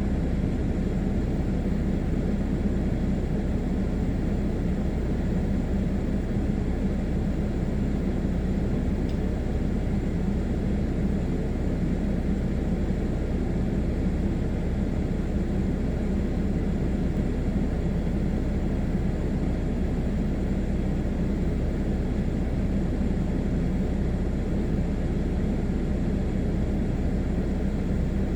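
A blower running steadily, blowing down through an outdoor wood boiler's chimney pipe to clear it of creosote and soot.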